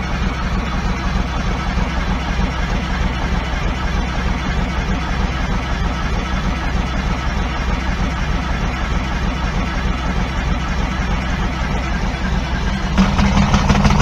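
Detroit Diesel 6V92 two-stroke V6 idling steadily shortly after a cold start, the exhaust pouring white smoke. It gets louder about a second before the end.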